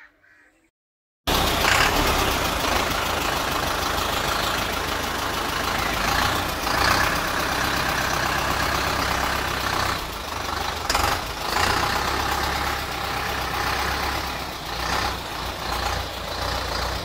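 YTO EF 804 tractor's diesel engine running steadily at idle, starting abruptly about a second in.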